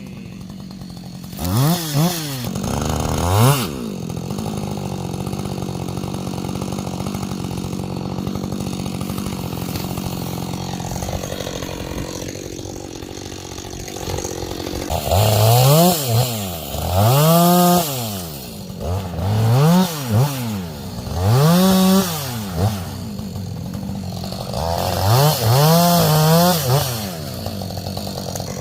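Two-stroke gas chainsaw revved up twice, then idling steadily for about ten seconds, then revved up and down again and again, about seven times.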